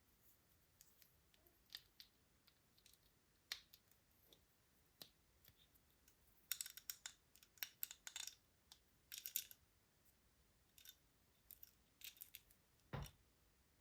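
Scattered light clicks and crinkles of plastic toys and packaging being handled, busiest in the middle, with one heavier knock near the end.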